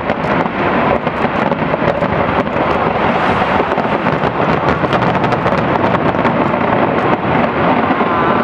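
Fireworks display: aerial shells bursting in a dense, unbroken run of bangs and rapid crackling.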